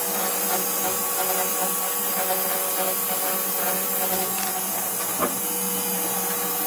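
Home-built steel CNC router running a carving job: a steady motor drone with a whine that drops out about two seconds in and comes back near the end.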